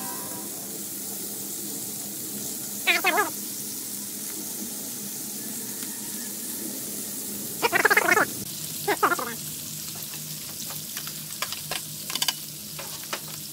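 Raw bacon strips and sausage patties sizzling on a hot flat-top griddle: a steady frying hiss with scattered small pops and crackles that come more often in the last few seconds.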